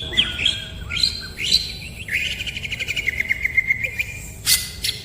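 Small birds chirping, with quick high trills, one of them sliding down in pitch over about two seconds. A short sharp noise sounds near the end.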